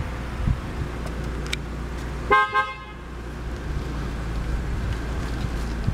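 2006 Lexus IS250's 2.5-litre V6 idling steadily, heard from inside the cabin. A single car-horn toot of about half a second sounds a little over two seconds in and is the loudest thing heard.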